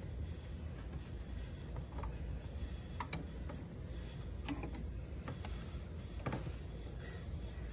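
Steady low hum with a few light clicks scattered through it.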